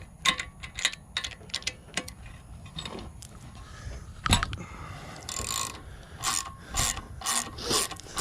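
Ratchet wrench clicking in repeated strokes as it backs out a cylinder head bolt on a small overhead-valve engine. Short sharp clicks at first, then longer runs of clicking in the second half.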